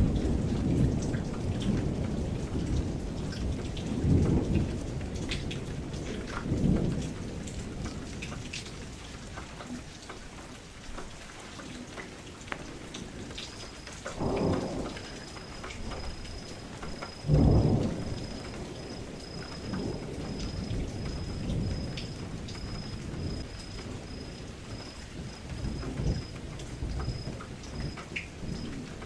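Thunderstorm: steady rain falling, with rolling thunder rumbles swelling and fading every few seconds. The loudest, sharpest clap comes a little past halfway.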